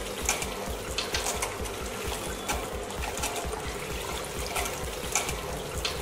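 Water from a miniature brick fountain pouring from four small pipes and splashing steadily into a clear tank, with a low pulsing hum underneath.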